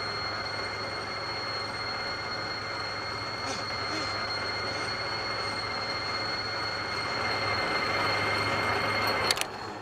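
An M134 minigun fires one long unbroken burst, a dense continuous buzz with a steady high whine over it, amid other automatic gunfire. It cuts off sharply near the end.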